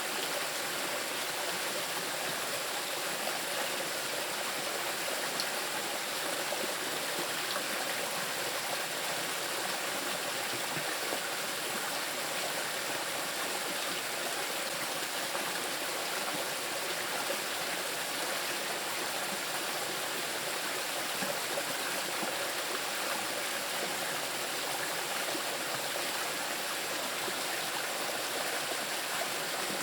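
Small river rushing over moss-covered rocks: a steady, even wash of running water.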